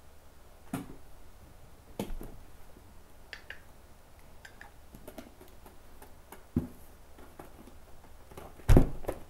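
Handling noise from someone moving on a couch and picking up props: a few scattered knocks and small clicks, with a louder thump near the end.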